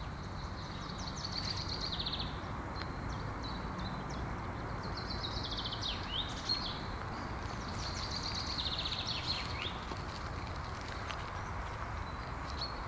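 Steady low road and tyre rumble of a car driving over the steel-decked Bailey bridge and its approaches, with a single knock about six and a half seconds in. A bird sings a short trilling phrase three times over it.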